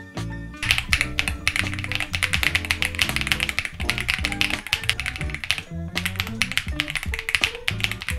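Fast typing on a 65% mechanical keyboard: a dense run of key clacks starting about half a second in, with a short pause about two-thirds through, over background music.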